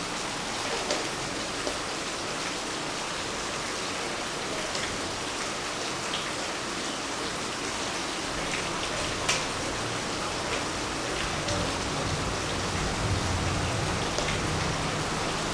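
Steady heavy rain falling, an even hiss throughout, with a few faint clicks and one sharper click about nine seconds in.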